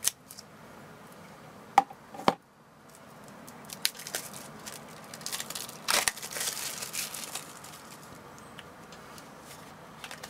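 Clear plastic shrink-wrap being torn and crumpled off a pack of game cards, with a few sharp clicks in the first two seconds and a stretch of crinkling in the middle.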